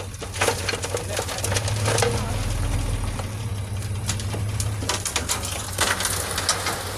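A bulldozer's engine running steadily under repeated sharp crunches and clanks, typical of the tracks and blade working loose gravel.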